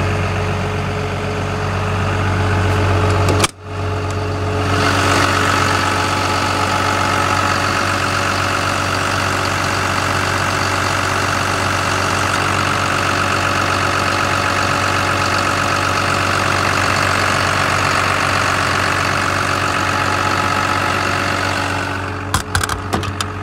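Caterpillar M316D wheeled excavator's six-cylinder C6.6 ACERT diesel idling steadily, heard close to the open engine bay. The sound breaks off briefly about three and a half seconds in, then comes back brighter with a steady high whine. Near the end, a few sharp clicks from a hand working a side-panel lock.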